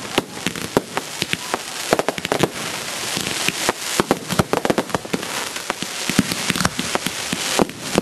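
Aerial fireworks going off in rapid succession: many sharp pops and bangs, irregularly spaced and several a second, over a continuous hiss.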